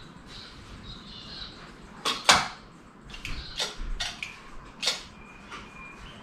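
Sharp clicks and clinks of small metal parts and tools being handled while taking the carburettor off a boat engine, about eight scattered over a few seconds, the loudest a little past two seconds in.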